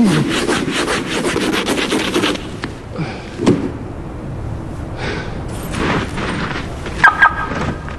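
Snow and ice being scraped and brushed off a snow-covered car: quick rubbing strokes for the first two seconds or so, then scattered single scrapes. Near the end come two short high beeps.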